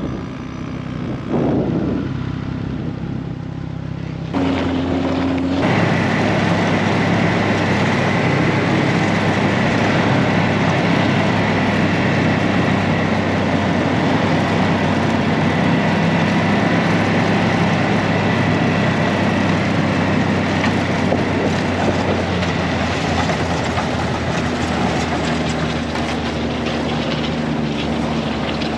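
Snowmobile engine running steadily while riding, getting louder from about four to six seconds in and holding an even drone after.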